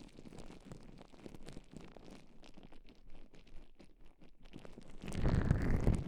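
Gloved hands rubbing gel and baby oil over an ear-shaped microphone: soft, slippery crackling and rubbing, which turns into a much louder, closer rubbing with a heavy low rumble about five seconds in.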